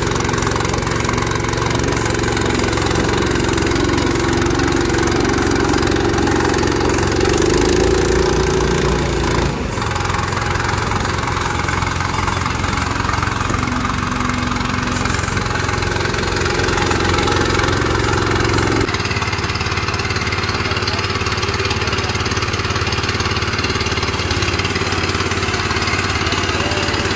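Small petrol engine of a Hyundai walk-behind single-drum compaction roller running steadily. The level dips briefly about ten seconds in, and the low end of the sound changes about two-thirds of the way through.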